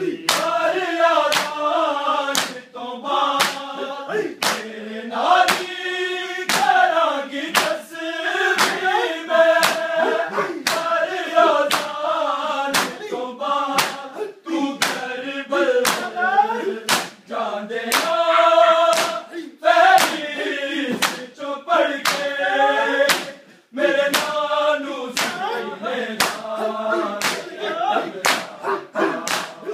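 Group of men chanting a mourning lament (noha) in unison while beating their bare chests in time with open hands: sharp slaps roughly once a second over the singing.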